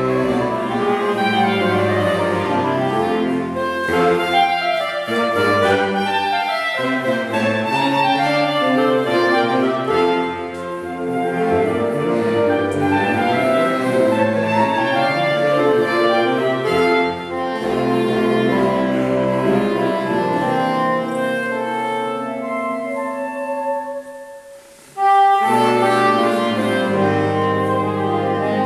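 A saxophone quartet of soprano, alto, tenor and baritone saxophones plays a piece in four-part harmony. About 24 seconds in the music thins to a brief pause, then all four come back in together.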